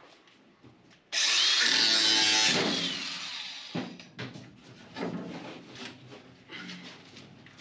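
Angle grinder run in one short burst of about a second and a half against sheet steel, a loud hissing grind with a motor whine that falls as the disc spins down. A few scattered knocks of metal being handled follow.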